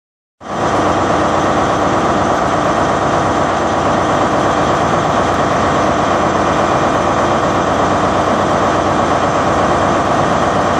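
Loud, steady engine-like rumble and hiss that starts abruptly just after the beginning and holds at an even level throughout.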